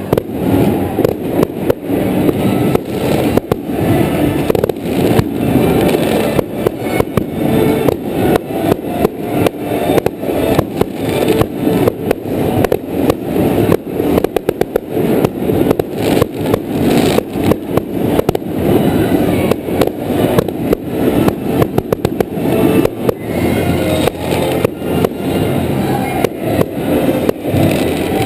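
Aerial fireworks display: a steady barrage of shell bursts and crackle, bang after bang with little pause. About fourteen seconds in comes a quick run of rapid, evenly spaced reports.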